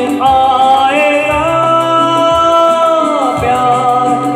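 Live band music with acoustic guitar and keyboards: one long held melody note that slides down about three seconds in, over a sustained bass and a steady beat of about one thump a second.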